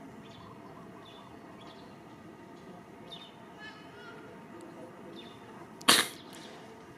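Steady outdoor background with faint, short high chirps scattered through it. Near the end comes one sudden, sharp burst of noise, much the loudest sound, lasting a fraction of a second.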